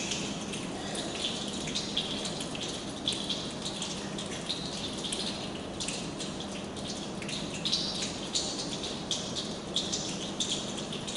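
A large group of children imitating rain with their hands and fingers: a dense, uneven patter of many small snaps and pats over a steady rustling hiss, like rainfall.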